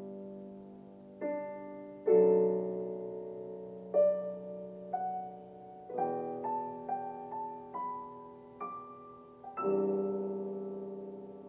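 Solo piano background music: slow chords, each left to ring and fade, with a quicker run of single notes in the middle.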